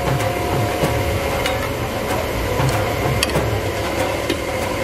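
Sharp metallic clinks of a steel ladle and steel plates knocking against large steel cooking pots, over a steady mechanical hum with a low rumble.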